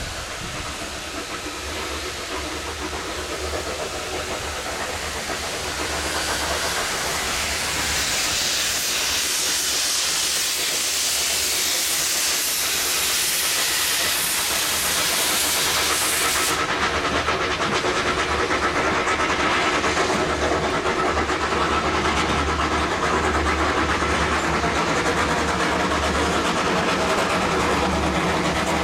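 Steam locomotive hissing steam: the hiss swells about a fifth of the way in and cuts off suddenly just past halfway. Two Andrew Barclay tank engines then approach with a passenger train, their running growing steadily louder.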